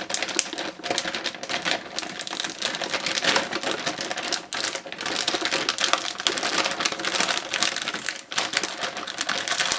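Plastic vacuum storage bag crinkling and rustling as it is handled: a dense, continuous run of small crackles and clicks.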